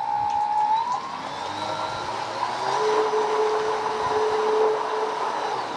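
Small electric motor spinning a 30 mm three-blade 3D-printed boat propeller under water in a test tank: a steady whine over churning water, rising slightly in pitch about a second in and gliding down as the motor stops near the end.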